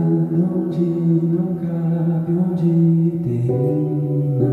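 Live music: a low sustained note held for about three seconds, then stepping down to a lower held note.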